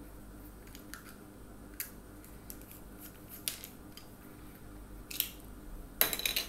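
Small screwdriver unscrewing a plastic two-pin mains plug: light, scattered clicks and scrapes of metal on plastic. Near the end, a louder burst of scraping and clatter as the plug's cover and base come apart.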